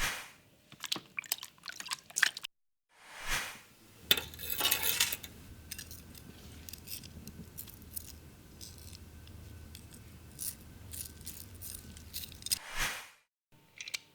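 A sequence of foley sound effects: a run of small clicks and clinks, short swells of noise, and a louder noisy rush about four seconds in. A low steady hum with light scattered ticks follows.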